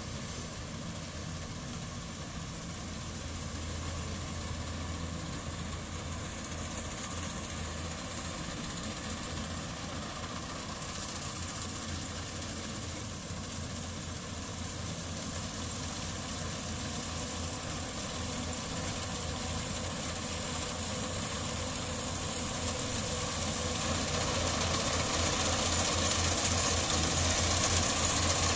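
Yanmar AW70GV combine harvester's diesel engine running with a steady low throb. It gets louder over the last several seconds as the machine comes closer.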